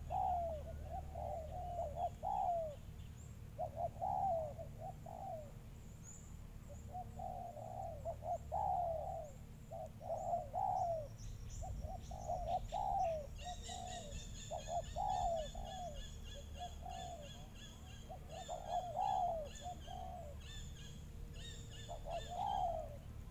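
Doves cooing: phrase after phrase of low, falling coos throughout. From about halfway through, a fainter high chirping pattern runs alongside.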